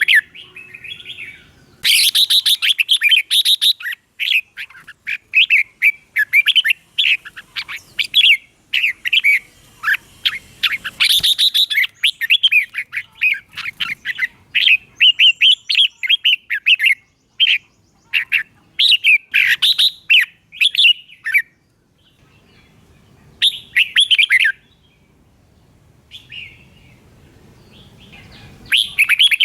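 Red-whiskered bulbul singing: quick runs of short, bubbling whistled notes, almost unbroken for most of the stretch, then a few shorter phrases with pauses between them near the end.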